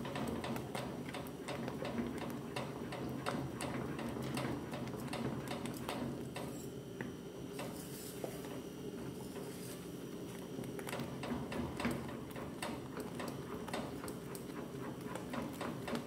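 A spoon beating thick, cooked polenta in an aluminium pot, clicking against the pot a few times a second over a steady low hum.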